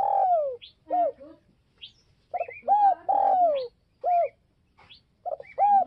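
Spotted dove cooing its song. Each phrase is a few short rising-and-falling coos and one longer down-slurred coo, and the phrase repeats about every three seconds.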